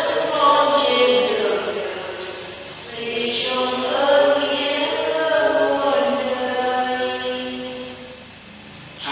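Slow sung church chant: voices hold long, drawn-out notes in two phrases, with a short break about three seconds in and a lull near the end.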